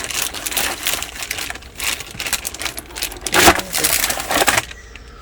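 Plastic packaging crinkling and crackling as it is pulled off a keyboard, with many small clicks. The loudest crackle comes about three and a half seconds in, and the handling stops shortly before the end.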